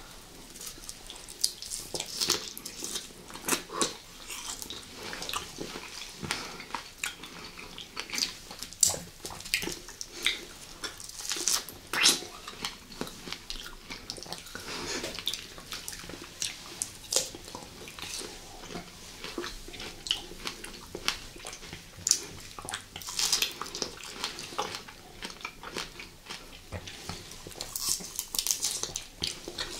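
Close-miked eating sounds: fresh strawberries being bitten and chewed, wet and juicy, mixed with sips and swallows of juice from a glass. Irregular mouth clicks and smacks come every second or so.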